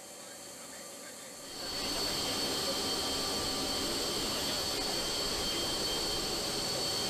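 Aircraft turbine engines running steadily, heard from inside the open cabin door: a steady rushing noise with a thin high whine over it, coming in about a second and a half in after a quieter start.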